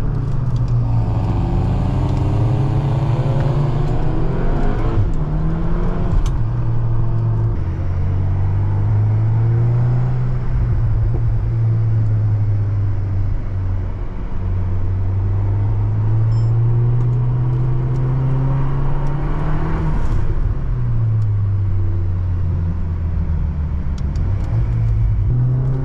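Cupra Ateca's turbocharged 2.0-litre four-cylinder (EA888) engine pulling hard through the gears of its 7-speed DSG. The engine note rises and then steps down at each gear change several times, with one long, slow climb in the middle.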